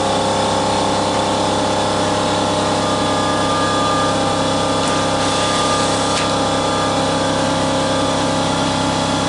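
Steady machine hum from a running motor, holding one even pitch throughout, with a couple of faint taps about five and six seconds in.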